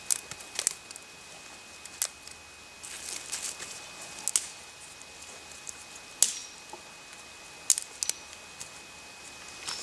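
Small dry twigs and branches being snapped by hand for kindling: a few sharp, separate cracks spread over several seconds, with quieter handling between them.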